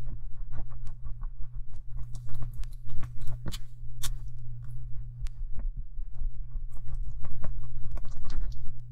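Thick, sticky slime paste of talcum powder and sugar being stirred in a glass bowl with a plastic spoon: a run of irregular wet clicks and squelches over a steady low hum.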